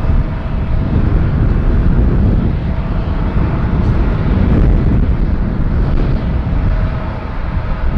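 Jet airliner's engines running as it comes in low to land: a steady, loud, dense rumble with a faint steady whine above it.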